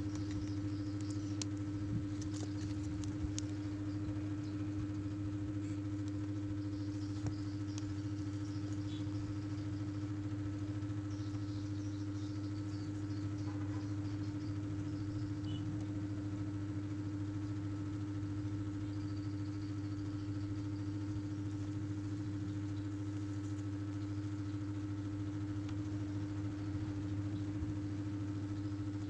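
Steady low hum with a held pitched tone that stays unchanged throughout, with faint small ticks and taps now and then.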